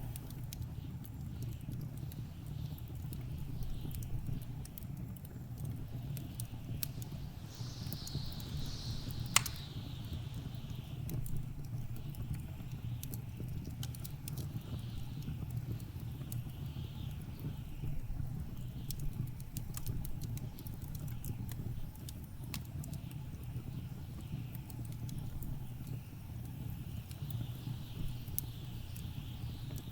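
Wood fire crackling with scattered sharp pops, one loud pop about nine seconds in, over the steady low rumble and passing gusts of blizzard wind.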